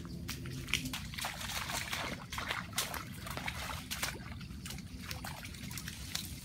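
Water splashing and trickling, with many short crackling splashes, busiest in the first few seconds.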